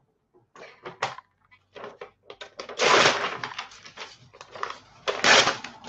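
Rustling and clicking handling noises close to the microphone, with two louder rustles, about three seconds in and near the end.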